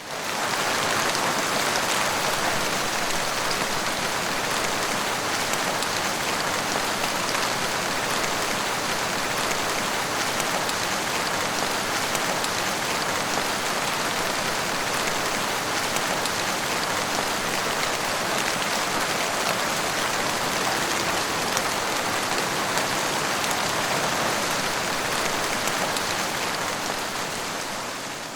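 Heavy rain falling steadily, a dense hiss of drops on a hard surface, fading in at the start and fading out near the end.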